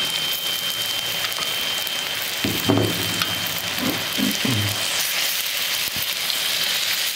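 Chicken masala frying in hot oil in a wok, a dense crackling sizzle as whisked yogurt is poured in and spread.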